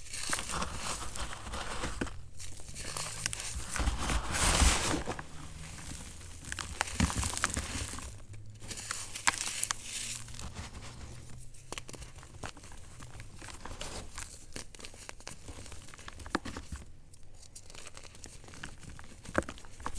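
Gym chalk chunks and powder crushed and rubbed between bare fingers: dry, gritty crunching and crackling with sharp little snaps as pieces break. It comes in spells with short pauses and is loudest about four to five seconds in.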